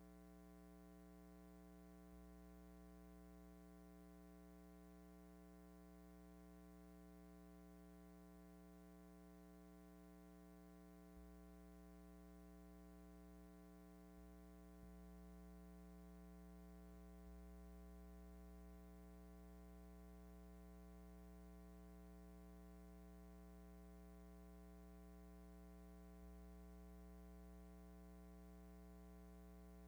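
Near silence: only a faint, steady hum on an otherwise empty soundtrack.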